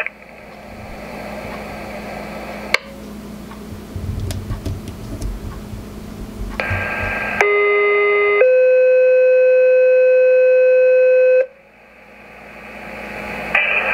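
Two-tone sequential fire/EMS pager alert coming through a radio scanner's speaker: a lower tone for about a second, then a higher tone held steady for about three seconds. Before it there are a few seconds of radio hiss with a sharp click, and the tones are the page that sets off the receiving pagers.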